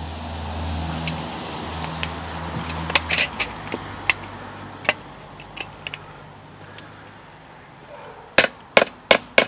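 Small metallic clicks of a thin metal pot-hook clip being fitted to an X-Boil stove plate, then, near the end, three light hammer taps about 0.4 s apart as the clip is gently bent shut to hold the pot hook in place. A low hum is heard under the first three seconds and then stops.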